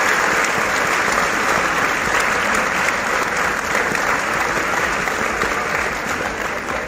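Audience applauding, a dense, steady clapping that slowly fades toward the end.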